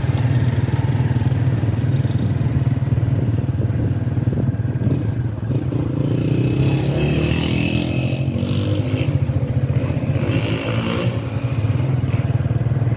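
Steady engine rumble and wind buffeting the microphone while riding a motorcycle through city traffic. From about six to eleven seconds in, other vehicles passing add a rising and falling engine note and some higher noise.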